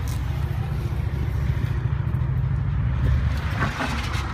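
Steady low rumble of an idling vehicle engine, with a few short rustles near the end.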